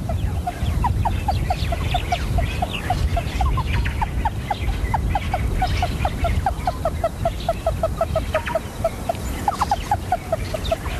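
Meerkats giving a rapid run of short clucking chirps, about four a second, while grooming one another. This is the soft contact call of social grooming, heard over a steady low rumble.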